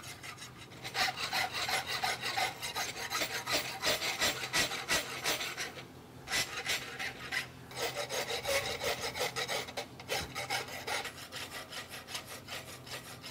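Hand file scraping over a forged steel horseshoe held in a vise: repeated rasping strokes, cleaning up the wedge and heel caulk. The strokes break off briefly about six and ten seconds in.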